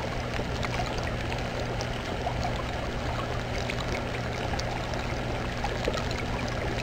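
Water from an aquarium filter's outflow pipe trickling and splashing at the tank's surface. The steady rush carries scattered small droplet ticks over a low steady hum.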